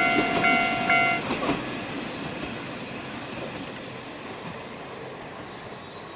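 Level-crossing electronic warning bell ringing a few more repeated strokes and cutting off about a second in, as the passing WKT-520 diesel railcar's running noise fades away. Insects chirp steadily throughout.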